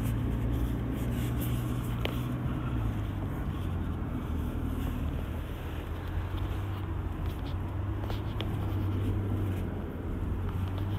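Cabin noise inside a moving 2020 Toyota Hilux: a steady low drone from its 2.8-litre 1GD-FTV four-cylinder turbodiesel, mixed with tyre and road noise, which the riders call quiet.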